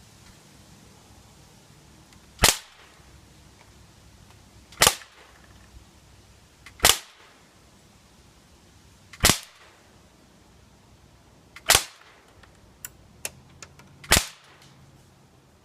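Umarex XCP .177 CO2 BB pistol firing six shots, one every two to two and a half seconds, each a sharp pop. A few faint ticks come between the fifth and sixth shots.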